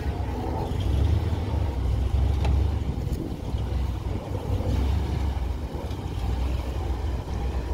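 Small-block V8 in a Willys M38A1 Jeep running at low throttle as it crawls over rocks. The low exhaust rumble swells and eases several times with the throttle.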